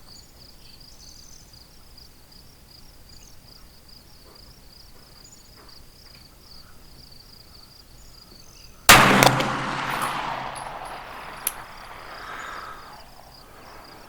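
A single shot from a CZ P-10 F 9mm pistol about nine seconds in, with a long rolling echo fading over a few seconds, and a short sharp click a couple of seconds after it. Crickets chirp steadily throughout.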